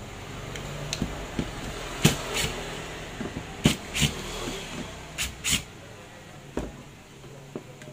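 Sharp, irregular clicks and knocks, about eight of them, as a cordless drill-driver and its bit work the screws of a brushless impact driver's plastic housing during reassembly, over a low steady hum.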